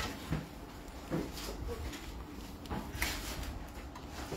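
Handling sounds at a glass jewellery display counter: a few light knocks and clicks as pieces are moved and set down, over a low steady hum.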